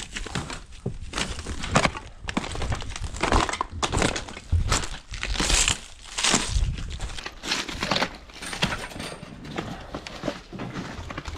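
Footsteps crunching over a heap of broken clay roof tiles and burnt debris: irregular crunches and scrapes of tiles shifting and cracking underfoot, with a few heavier crunches in the middle.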